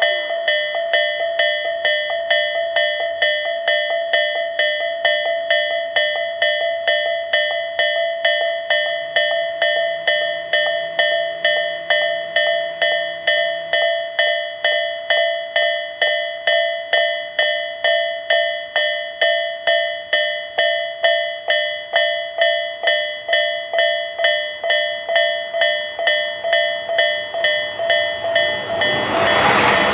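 Japanese railway level-crossing warning bell ringing steadily, about two strokes a second. Near the end a passing train's rumble rises over it.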